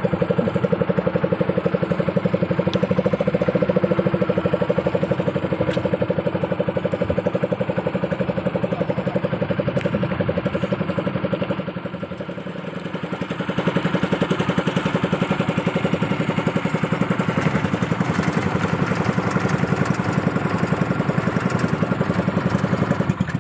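Small fishing boat's engine running steadily under way, with a fast, even chugging. It eases off a little about twelve seconds in, then picks back up.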